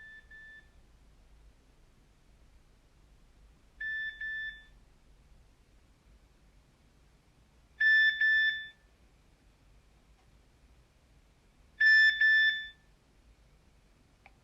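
Nokia 3100 mobile phone sounding a short electronic alert tone through its own speaker: a brief double beep repeated four times, once every four seconds, each time louder than the last.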